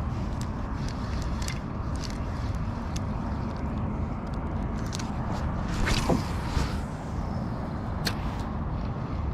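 Steady wind rumble on the microphone over the water, with scattered small clicks and a brief louder swish with a falling pitch about six seconds in.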